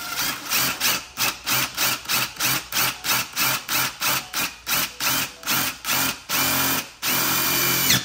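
Impact driver fitted with a drill bit, on its second speed setting, run in quick short trigger bursts about three a second, then in two longer runs near the end, drilling out rivets.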